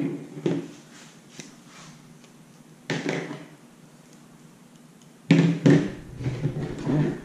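Knocks and clatter of a PVC pipe and a can of PVC cement being handled and set down on a tabletop: a knock at the start, another about three seconds in, then a run of clattering about five seconds in as the cement can is picked up.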